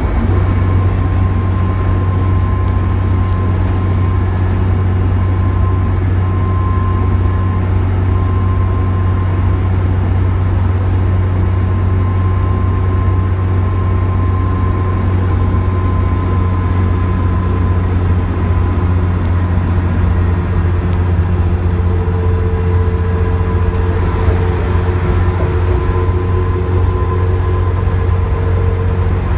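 Inside a 1998 New Flyer D40LF transit bus cruising at freeway speed: its Cummins ISC inline-six diesel engine and tyre and road noise make a loud, steady low drone. A faint steady whine sits above it, and a second, lower whine joins about two-thirds of the way in.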